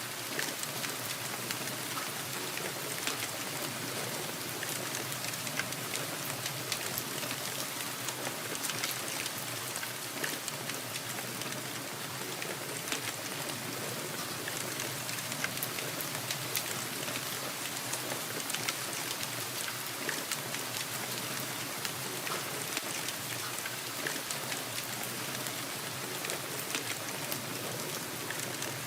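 Steady rainfall: an even hiss with many small drop ticks scattered through it.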